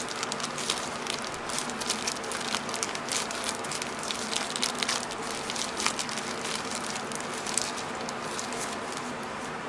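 Thin plastic packaging bag crinkling and rustling as it is handled and pulled open, a dense run of crackles that thins out near the end.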